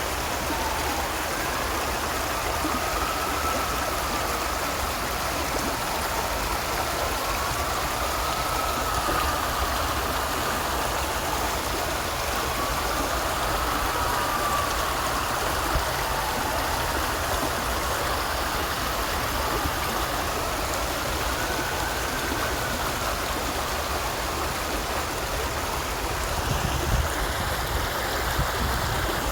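A stream of water flowing steadily, with a faint whine in the background that slowly rises and falls in pitch.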